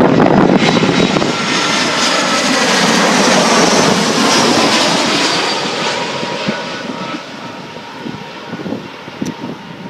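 Jet airliner passing close by, its engine noise with high whining tones loud at first and fading away over about seven seconds. Wind gusts buffet the microphone near the end.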